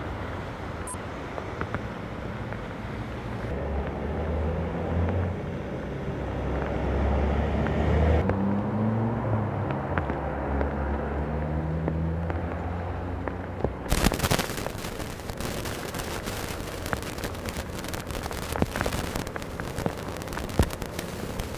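Rainy street: a steady low rumble of road traffic with engine tones, then about two-thirds of the way through a sudden change to rain falling hard, a dense crackle of drops hitting close by.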